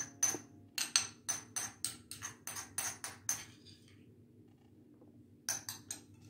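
Metal spoon tapping and scraping inside a small ceramic bowl of garlic-ginger paste: a quick run of light clinks, about four or five a second, for three seconds or so, then a pause and a few more clinks near the end.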